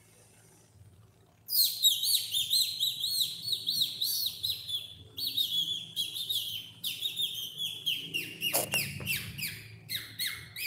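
Budgerigars chattering: fast runs of short, high chirps that start about a second and a half in and keep going, with a brief break near the middle.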